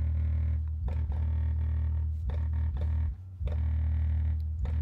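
Sunfire MK II subwoofer with its 10-inch woofer playing a bass-heavy music track: a loud, deep, steady bass line over a beat, dipping briefly a little after three seconds in.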